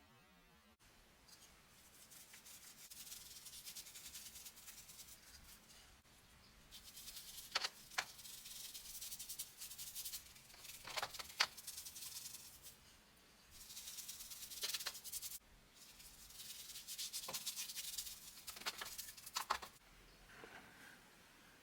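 Rubbing on wood by hand in stretches of a few seconds, a dry, hissing scrape broken by a few sharp clicks.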